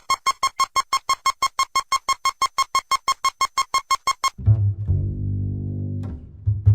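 Rapid electronic beeping, about six short identical beeps a second, a buzzy tone with many overtones that stops abruptly about four seconds in. Low bowed and plucked bass background music then returns.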